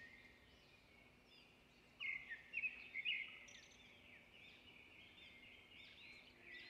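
Faint bird chirping and twittering in the background, repeated short arched chirps, with a louder run of sharp chirps about two seconds in, over a faint steady hum.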